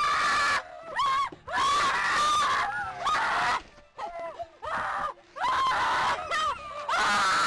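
High-pitched voices screaming and shrieking in short, loud bursts, one after another with brief gaps between them.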